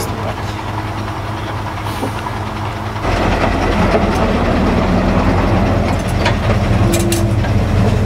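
Heavy logging truck's diesel engine running with a steady hum. About three seconds in it becomes louder, and its note shifts a little as it works.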